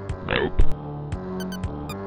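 Background video-game music from an SNES soundtrack with a steady beat. About a third of a second in comes a short burst falling in pitch, then a loud thump.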